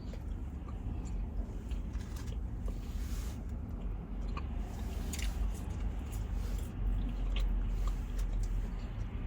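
A person chewing and biting into soft toasted bread, close to the microphone, with wet mouth sounds and small scattered clicks.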